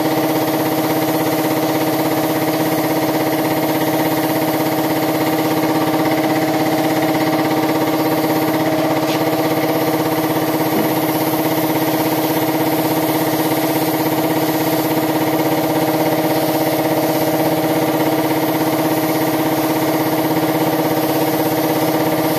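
Air compressor running steadily with a constant hum, under the hiss of a compressed-air spray gun spraying paint.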